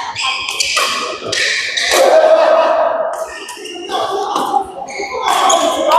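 Badminton doubles rally: repeated sharp racket hits on the shuttlecock, mixed with short high squeaks of court shoes on the floor, with voices in the background.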